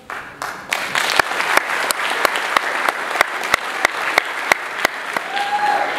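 Audience applauding, with one clapper close by standing out at about three claps a second; the applause dies down near the end.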